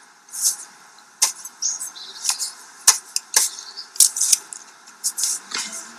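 Metal ice-cream scoop scraping through ice cream and clinking against the metal tubs of an ice-cream cart: a string of sharp clicks and short scraping sounds, about one or two a second.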